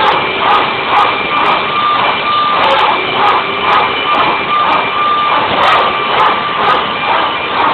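Steady loud whine of running aircraft machinery, with a high held tone and a throb about twice a second.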